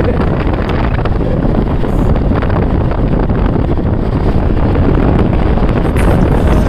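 Wind rushing over the microphone of a moving motorcycle, a loud steady rush.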